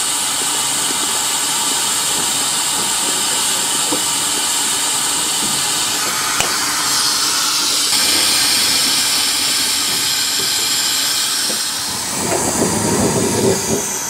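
Steady hiss of steam escaping from a small coal-fired 0-4-2 tank steam locomotive while it is raising steam. About twelve seconds in comes a brief irregular clatter.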